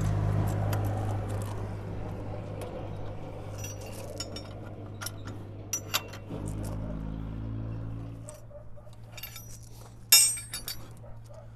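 Steel wrench tightening the nuts on a hoe's blade-attachment bracket: scattered sharp metallic clicks and clinks, then one loud metal clank about ten seconds in. A steady low hum runs underneath and fades out about eight seconds in.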